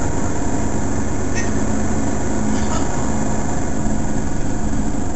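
Mercedes-Benz Citaro Facelift city bus engine idling steadily while the bus stands still, with a brief sharp click about a second and a half in.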